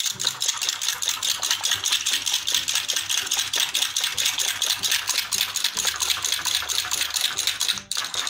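Hand coil whisk beating a raw egg in a small bowl, the wire clicking rapidly and steadily against the bowl's side, with a brief break near the end.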